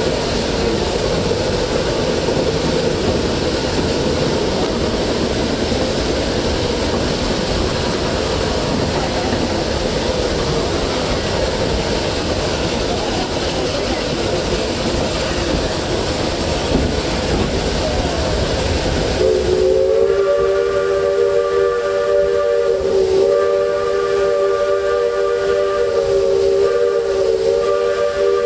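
A 2-truck Shay geared steam locomotive's train running with a steady rushing hiss. About two-thirds of the way in, the locomotive's steam whistle blows a long chord of several close notes. The chord holds with two brief dips.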